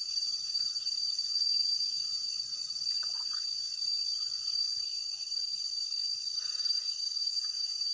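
A steady, high-pitched chorus of night insects, a continuous trill that does not let up.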